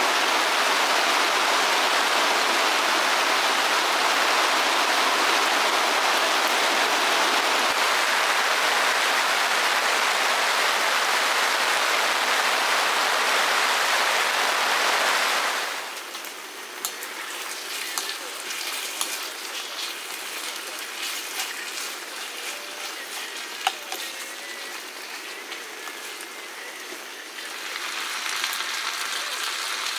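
Steady rain falling, a dense even hiss. About halfway through it drops abruptly to a quieter patter of drops with scattered ticks, then grows a little louder near the end.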